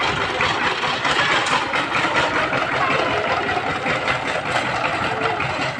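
Power tiller's single-cylinder diesel engine running steadily.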